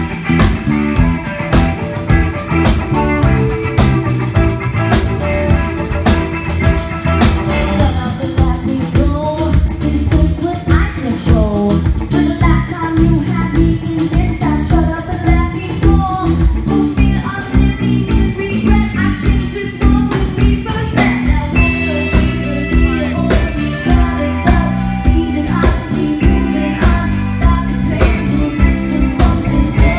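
Rock band playing with a steady beat: a woman sings lead over drum kit, electric bass and electric guitar.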